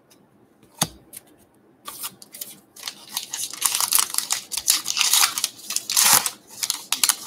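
A baseball card pack's wrapper being torn open and crinkled: a sharp click about a second in, then a fast, dense run of crackling and ripping from about two seconds in.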